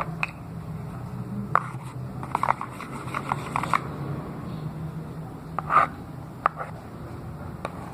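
Scattered light clicks and scrapes of slime-making materials being handled, a cluster of them about two and a half to four seconds in, over a steady low hum.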